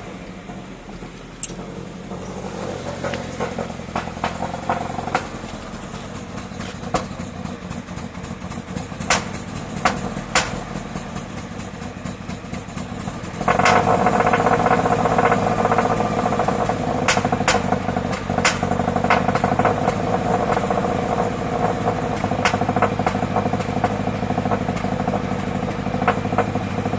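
Subaru BRZ's flat-four boxer engine running just after starting, with irregular sharp pops and stumbles breaking into the steady hum: the engine is misfiring. About halfway through, the sound steps up clearly louder and stays there.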